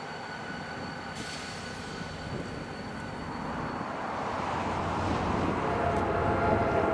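EMD diesel freight locomotives running, an engine rumble under a steady high whine; over the last few seconds the train sound grows steadily louder as a train approaches.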